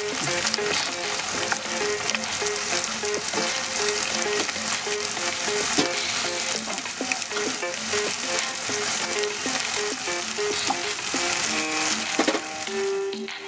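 Chopped onions, dried red chillies and whole spices sizzling and frying in hot oil in a nonstick wok, stirred with a wooden spatula, with a steady hiss and scattered crackles.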